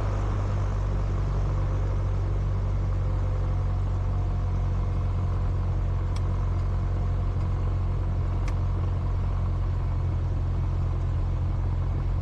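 Cessna 172's piston engine running at low taxi power, a steady low drone. Two faint clicks sound over it, about six seconds in and again a couple of seconds later.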